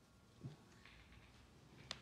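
Near silence: room tone, with a short faint sound about half a second in and a small sharp click near the end.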